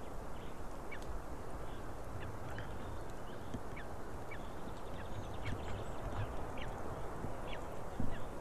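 Steady rushing of wind on the nest microphone, with short, high, rising bird chirps scattered through it.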